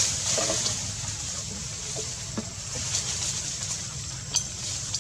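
Steady outdoor background noise like running or trickling water, with a single faint click about four and a half seconds in.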